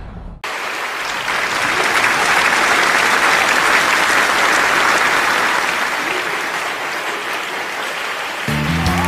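Audience applauding steadily, starting abruptly about half a second in as a falling musical sweep cuts off. Music with low held notes comes in under the applause near the end.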